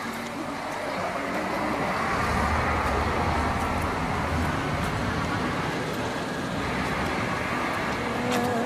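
Street traffic ambience: a road vehicle's low rumble swells in the first half and eases off.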